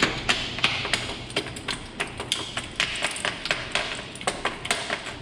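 A run of light, irregular taps and clicks, several a second, over a low steady hum.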